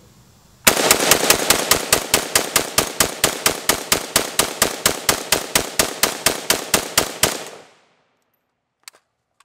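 DPMS Anvil AK-47 rifle fired in rapid succession, a long string of shots at about five or six a second that starts just under a second in and stops about seven seconds in, each shot with a short echo.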